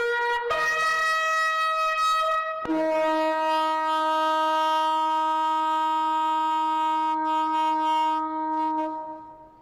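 Ram's-horn shofar blown in a short run of changing notes, then one long held blast on a lower note for about six seconds that fades away near the end. This closes the sequence of shofar calls with the final long blast, sounded for as long as the breath lasts.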